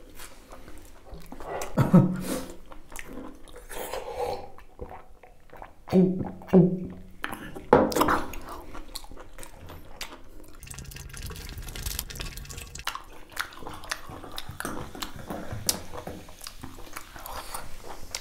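Close-miked eating sounds: wet chewing and slurping of beef innards, in irregular bursts with a few louder ones about 2, 6 and 8 seconds in.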